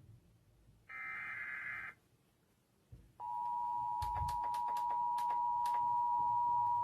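Emergency Alert System SAME data burst, a one-second warbling digital buzz, about a second in. About three seconds in, the steady two-tone EAS attention signal begins and holds, with a few sharp clicks over it.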